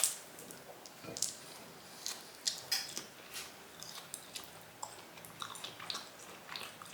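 A person chewing and biting raw chicken: irregular short mouth clicks at an uneven pace.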